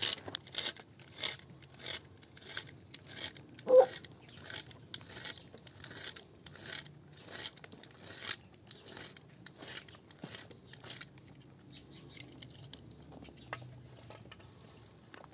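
An animal eating: regular crisp crunches about one and a half times a second, growing fainter and sparser after about eleven seconds, with one short call near four seconds.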